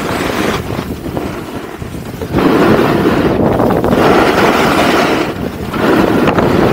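Wind buffeting the microphone of an action camera carried at speed down a snow slope: a loud rushing noise that eases for about a second, then surges back louder about two and a half seconds in.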